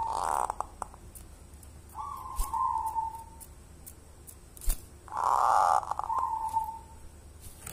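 Caged zebra dove (perkutut) cooing: three phrases of its soft, fluting coo. The third, about five seconds in, is the loudest. A couple of sharp clicks fall between the phrases.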